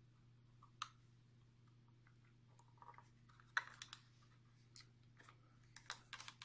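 Small plastic clicks and handling noises as a USB charging cable is plugged into a rechargeable LED work light, with the sharpest click about halfway through and a few more near the end, over a faint steady low hum.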